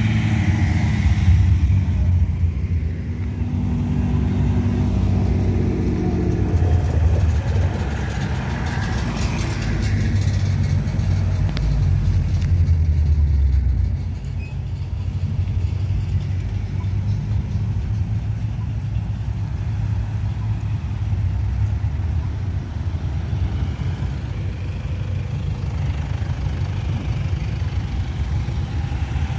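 Cars driving past one after another as they pull away through an intersection. An orange Datsun S30 Z-car's straight-six gives a clear engine note in the first several seconds. A heavier low rumble follows until about fourteen seconds in, as a black Holden Commodore passes. After that there is a steadier mix of engines and tyres from queued and rolling traffic.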